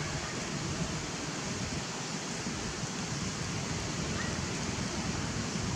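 Steady rushing outdoor background noise, with a faint, brief high squeak about four seconds in.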